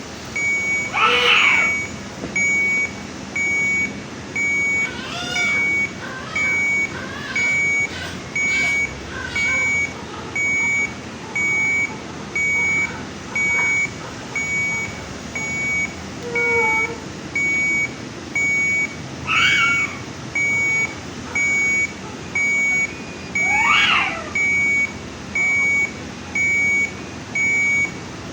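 A NICU patient monitor alarm beeps steadily at one high pitch, about once a second. Over it a newborn in respiratory distress makes short, strained vocal gasps: one about a second in, a run of weaker ones a few seconds later, and two stronger ones near the end.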